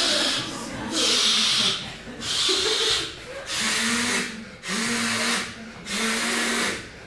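A man vocally imitating something being inflated: about six hissing puffs of breath, roughly one a second, some with a low hum under them.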